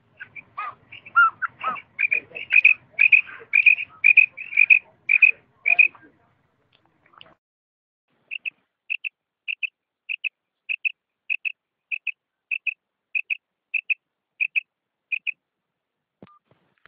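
Female common quail calling its 'kirak' call: a quick, uneven run of short high notes, then after a pause a regular series of short notes about every 0.6 s.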